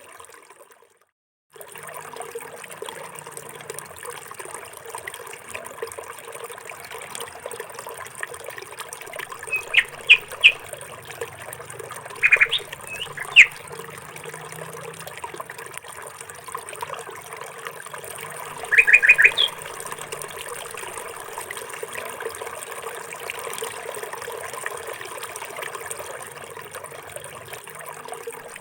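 Birds chirping in four short bursts of quick, high repeated notes over a steady background hiss that sounds like trickling water. The sound drops out for about a second near the start.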